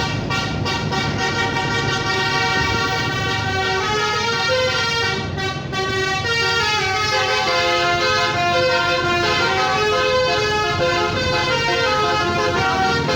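Indonesian bus 'telolet' musical air horn playing a tune: several horn tones sound together and step up and down in pitch, without a break.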